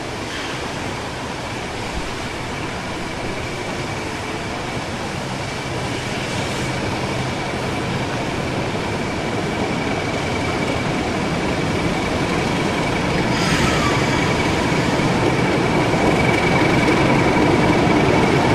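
British Rail Class 31 diesel-electric locomotive running slowly as it approaches, its engine and wheels growing steadily louder, with a steady high tone throughout.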